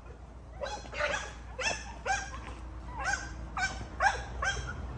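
A dog barking repeatedly, about two short barks a second, starting about half a second in.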